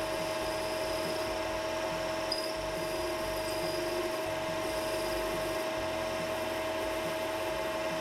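Metal lathe running steadily under power, its motor and gearing giving a steady whine with two strong low tones, as the cutting tool turns a shallow bevel on the end of a brass cap.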